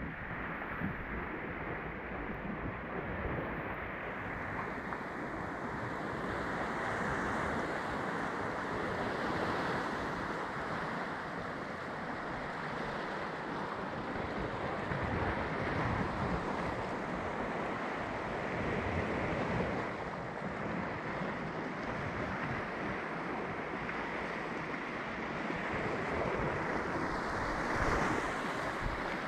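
Sea water lapping and sloshing around a kayak, with some wind on the microphone: a steady, muffled rush of water.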